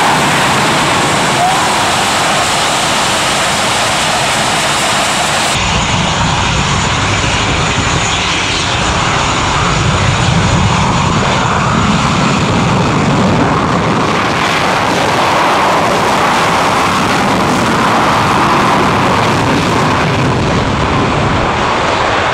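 English Electric Lightning's twin Rolls-Royce Avon turbojets running, a loud, steady jet noise. About five seconds in the sound shifts to a heavier, deeper version as the jet is heard taxiing.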